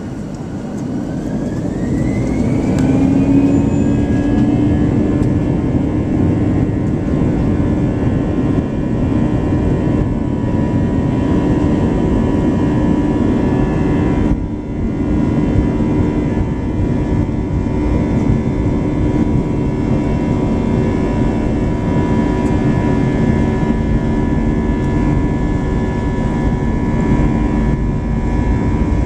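Airbus A320-family twin jet engines heard from inside the cabin, spooling up with a rising whine over the first few seconds to takeoff thrust, then running steadily at full power with a low rumble as the airliner accelerates down the runway. The sound dips briefly about halfway through.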